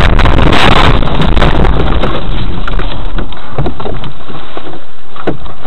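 Loud, distorted rumble of vehicle and wind noise on the microphone, with a few sharp knocks near the end.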